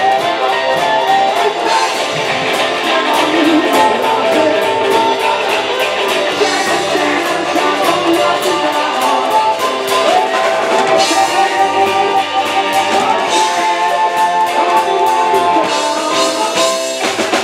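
Live band playing an up-tempo rock and roll number, loud, with electric guitar, upright double bass and a drum kit keeping a steady beat.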